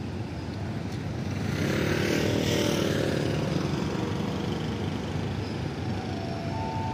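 Hitachi diesel-electric locomotive no. 4512 drawing a passenger train slowly into a station: a steady low engine rumble that swells for a couple of seconds about a second and a half in, then settles. Near the end a thin high squeal begins as the train slows to stop.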